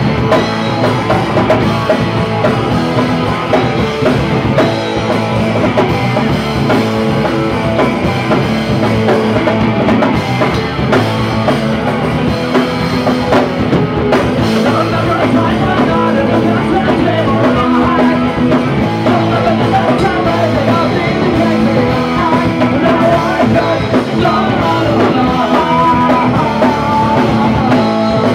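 Live punk rock band playing loud: electric guitars and a drum kit, with a sung vocal over them.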